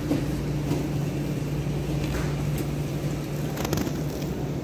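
Shopping cart rolling along a supermarket aisle: a steady low rumble of its wheels on the hard floor, with a few light rattles and clicks, the loudest about three and a half seconds in.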